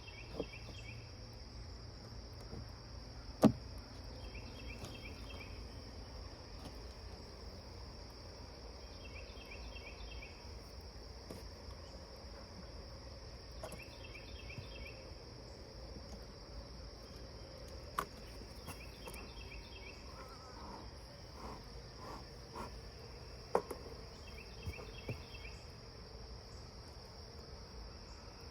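Insects chirring outdoors: a steady high drone, with a short pulsed call repeating about every five seconds. A few sharp knocks break in, the loudest about three seconds in and another about two-thirds of the way through.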